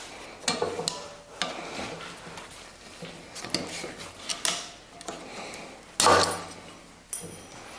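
Irregular metallic clinks, scrapes and knocks of a screwdriver worked against a driveshaft's U-joint yoke while prying at its snap rings, with the hardest knock about six seconds in.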